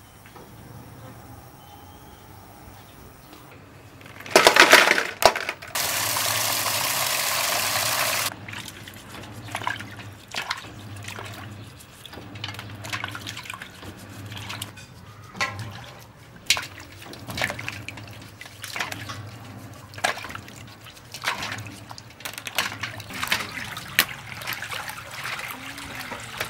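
Water splashing, then pouring steadily into a metal basin for about two seconds; this is the loudest part. After it come irregular small splashes and clicks, about one a second, as large freshwater snails are washed in the water.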